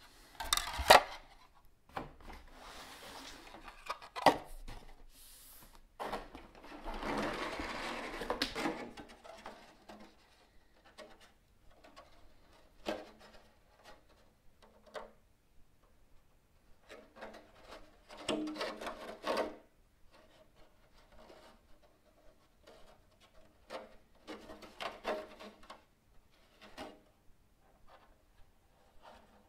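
Clear polycarbonate RC car body shell and plastic parts being handled: crinkling and rustling of the thin plastic in irregular bursts, with clicks and taps as parts touch the wooden table. A sharp click about a second in is the loudest sound.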